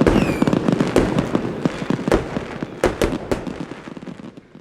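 Fireworks going off: a dense crackle of small bangs with several louder ones, a short falling whistle just after the start, dying away near the end.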